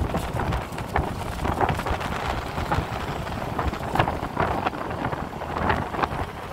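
Wind buffeting the microphone over street and vehicle noise, with scattered short knocks and clatters.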